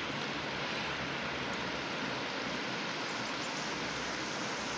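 Rushing river water: a steady, even noise.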